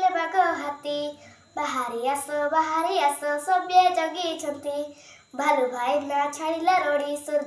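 A boy singing a story in verse in Odia, his voice alone, in three phrases with short breaths about one and a half seconds and five seconds in.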